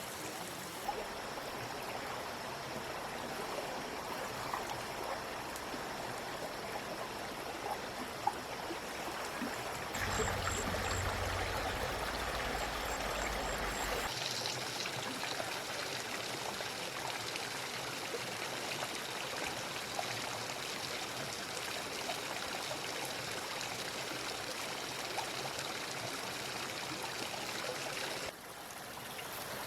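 Steady rush of running water, like a stream or heavy rain, with a louder stretch with added low rumble from about ten to fourteen seconds in, and a sudden dip near the end.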